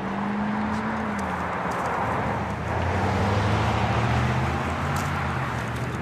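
Road traffic passing close by: engine hum and tyre noise swell in and stay loud, the engine note dropping in pitch about a second in.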